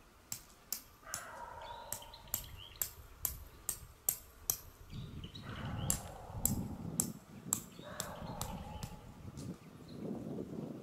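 Sharp metallic strikes of a hammer driving a tent peg into gravel, about two a second, with a short pause about five seconds in. A low rumble joins in the second half.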